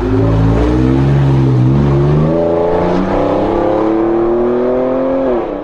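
Pickup truck engine accelerating: its pitch dips briefly about two seconds in, then climbs steadily, before falling and dropping away near the end.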